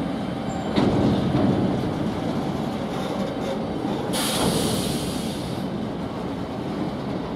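Freight train's covered box wagons rolling past close by, a steady rumble and clatter of wheels on rail, with a sharp knock about a second in. A sharp high hiss rises over the rumble about four seconds in and lasts about a second and a half.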